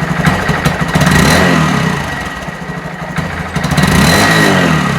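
Honda Monkey 125's single-cylinder four-stroke engine running through its stock exhaust, idling and revved briefly twice, about a second in and again near four seconds, each time rising and settling back to idle.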